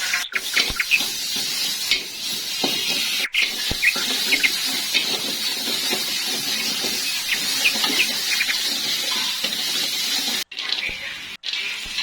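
Hot cooking oil sizzling and crackling as peanuts and tempe deep-fry, a dense steady hiss with scattered pops, broken off briefly a few times.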